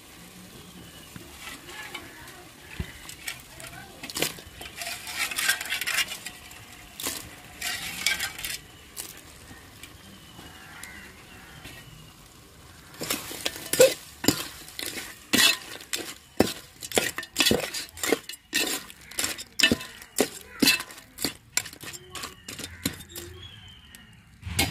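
Raw crabs being stirred into a hot pan of fried onion-tomato masala with a spoon. The food sizzles, with scattered clinks at first; from about halfway there is a quick run of spoon clinks and scrapes against the pan, about two or three a second.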